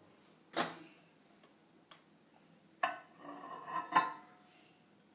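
Microwave door popping open with one sharp click, then a ceramic mug knocking and clinking against the turntable inside as it is lifted out, loudest about four seconds in.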